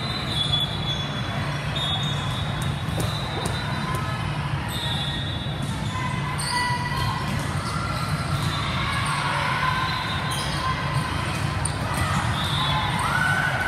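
Indoor volleyball being played: the ball is struck and bounces several times on a hard court, with short high sneaker squeaks and background chatter in a large hall.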